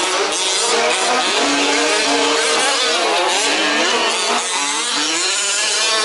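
Several 1/5th-scale RC off-road racing trucks' small two-stroke petrol engines revving and easing off as they race around the track. The overlapping engine notes rise and fall continually.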